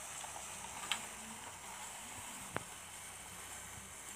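Model train running on its track: a faint steady whir and hiss, with two sharp clicks, one about a second in and one a little past halfway.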